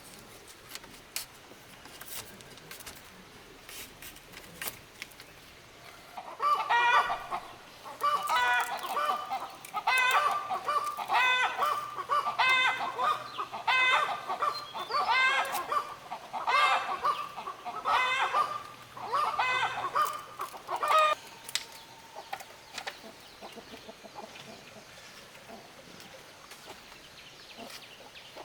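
Chickens calling: a long run of repeated, evenly spaced loud calls from about six seconds in until about twenty-one seconds in, with a few faint clicks and knocks around them.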